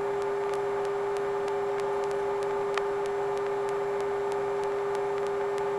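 Steady hum with overtones and a faint even hiss, carried on the Sikorsky S-58T helicopter's intercom audio between radio calls, with faint regular ticks.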